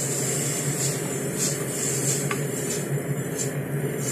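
Sliced mushrooms frying in a pan on a gas stove as the pan is shaken: a steady sizzle, with a single light tap about two seconds in, over a steady low hum.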